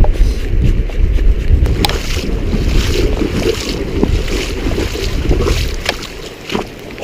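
Strong wind buffeting the microphone: a heavy low rumble that eases off about six seconds in, with a few sharp clicks over it.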